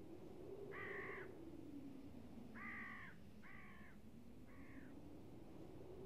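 A bird calling four times in short, harsh-sounding caws: one call about a second in, then three more in quick succession, the last fainter. Underneath runs a faint low drone that slowly wavers in pitch.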